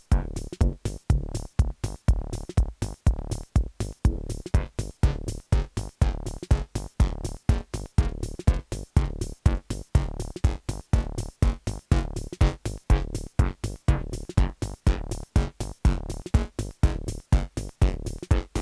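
Live techno from hardware drum machines and analogue synthesizers: a steady four-on-the-floor beat with strong kick drums, about two a second, under repeating synth lines.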